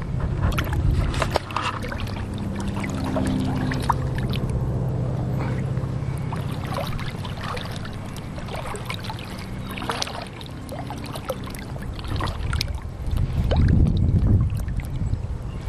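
Wind rumbling on the microphone over shallow rippling water, with scattered small splashes and ticks. A faint steady hum comes in a couple of seconds in and fades out around six seconds; the wind rumble swells near the end.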